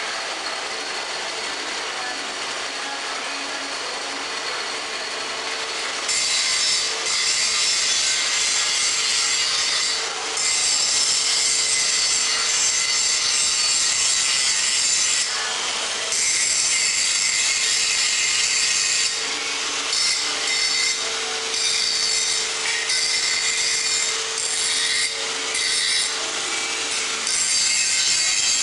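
HJM 200 MP stainless-steel mixer machine running, a steady hum under a continuous scraping, rubbing churn of the mixing action. It gets louder about six seconds in and dips briefly several times.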